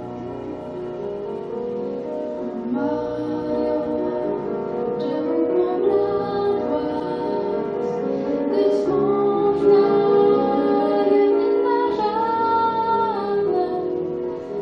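A woman singing a song with held notes over piano accompaniment; the voice enters a few seconds in, after the piano alone.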